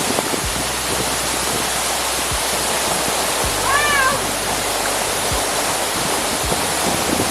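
Waterfall rushing steadily and loudly, with one short, arched high-pitched call about four seconds in.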